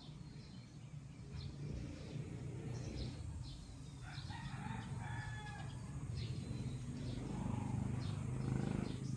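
A rooster crowing in the background about four seconds in, over a steady low hum.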